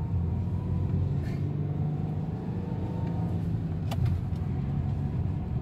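Car driving along a road, heard from inside the cabin: a steady low engine and road rumble, with a single click about four seconds in.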